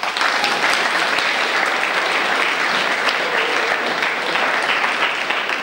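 Audience applause: a crowd of students clapping their hands steadily, starting abruptly and fading out at the end.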